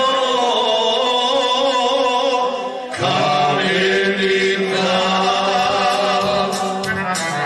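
A group of men singing a traditional Krajina song in the old multi-part style. They hold long, wavering notes over a steady lower voice. The phrase breaks off about three seconds in, and a new held phrase begins.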